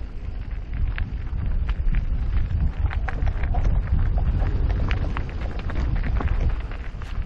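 Electric mountain bike rolling over a rough, stony trail: many short clicks and rattles from tyres on stones and the bike's parts, over a steady low rumble of wind on the microphone.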